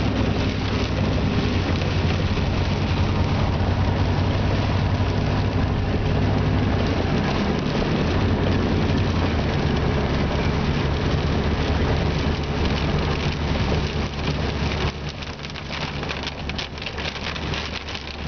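Car engine running at highway speed, heard from inside the cabin, with rain on the windshield and tyres hissing on the wet road. The engine note shifts about ten seconds in and the whole sound drops quieter about fifteen seconds in.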